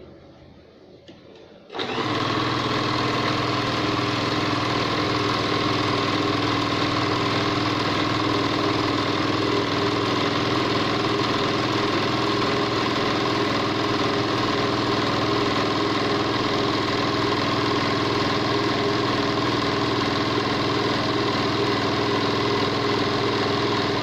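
Okurma 620-F three-thread overlocker starting about two seconds in and running at a steady speed, stitching an edge on thin fabric, then stopping near the end.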